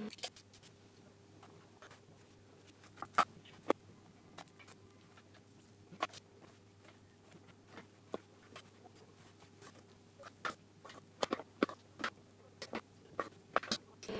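Soft, irregular taps and pats as clumps of vegan sausage filling are pressed down along a strip of rough puff pastry on a wooden board, with a faint steady hum underneath. The taps come in small clusters, busiest near the start and again toward the end.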